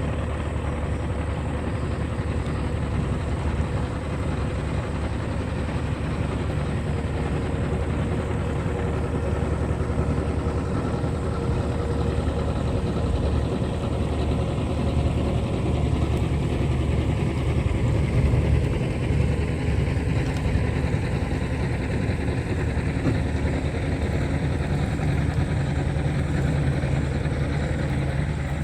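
Small boat's engine running steadily, with a faint whine that slowly drifts in pitch partway through.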